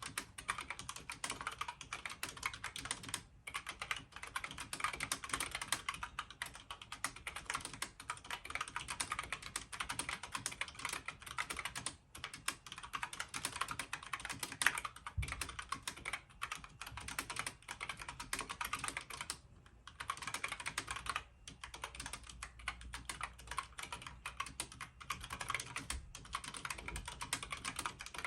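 Steady typing on a Logitech K845 mechanical keyboard with tactile brown switches and PBT double-shot keycaps damped by O-rings: a fast stream of keystrokes with a few short pauses, and one heavier knock about halfway through.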